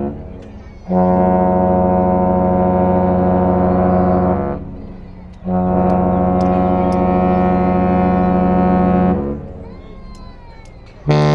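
Royal Caribbean Star of the Seas' ship horn sounding two long, steady, deep blasts with short gaps between them. Right at the end a second, lower-pitched horn starts up in answer.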